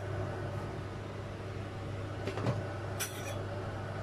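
A metal ladle handling fruit over a ceramic bowl: a soft knock about two and a half seconds in, then a sharp clink about half a second later, over a steady low kitchen hum.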